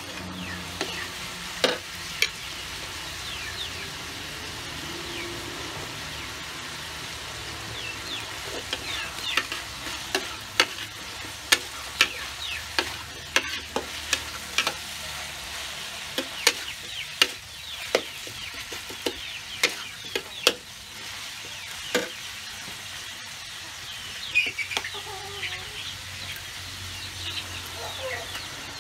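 Sliced vegetables sizzling steadily in a hot steel wok while a metal spatula stirs them, scraping and clacking against the wok; the clacks come thickest in the middle stretch.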